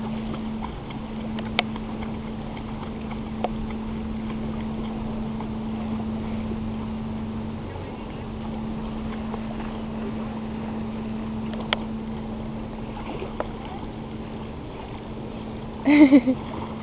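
A dog paddling in shallow lake water while held up by the belly, its legs splashing the surface, over a steady low hum.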